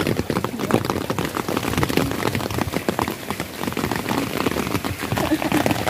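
Heavy rain pouring down, with a dense stream of drops striking close to the microphone.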